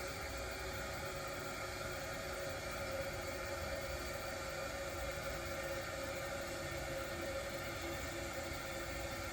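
Toilet refilling after a flush: a steady hiss of running water with a faint steady whine.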